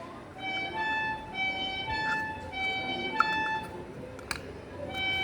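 Background music: a melody of held instrumental notes, one after another. A few clicks sound over it, a sharp one about three seconds in.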